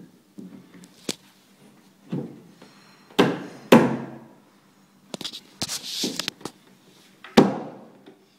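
Knocks and thunks of a white vanity stand's shelf panel being pushed and pressed into place by hand, with a scraping rub between the knocks about five to six seconds in. The loudest knocks come about three seconds in, twice close together, and again near the end.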